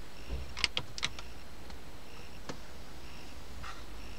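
Light clicks of buttons being pressed on a 2004 Honda Accord's car stereo: a quick run of about five in the first second or so, then single clicks further on, over a low steady hum.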